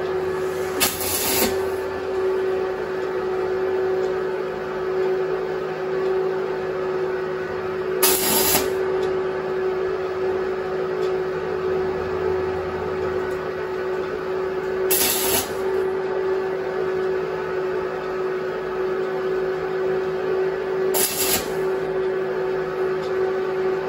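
MIG welder arc crackling and hissing steadily as weld is built up on the head of a rusted, seized blade screw to heat it and give something to grip, over a steady hum. Four brief louder hisses come through it, spread across the run.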